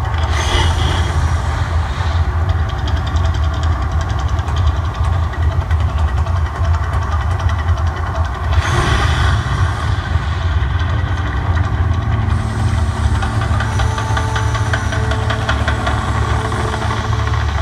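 Mirage volcano show erupting: a loud, continuous deep rumble with a fast fluttering throb, and a brief rushing surge about halfway through.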